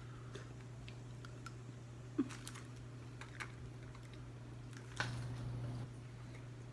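Faint scattered clicks and taps from a spoon and food pouch being handled while eating, with one sharper tap about two seconds in, over a steady low hum.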